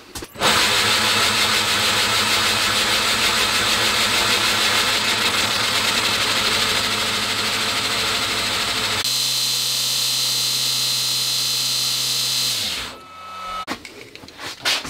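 Home-built 2x48 belt grinder, driven by a 3 hp (2.2 kW) motor on a VFD, running with its belt on while the tracking knob is turned to align the belt on the wheels. About nine seconds in the sound changes and a steady high whine joins it; then the motor winds down and stops near the end.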